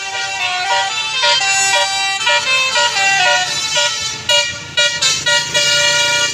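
Basuri telolet multi-tone bus horn playing a quick melody of short stepped notes, with a couple of brief breaks past the middle.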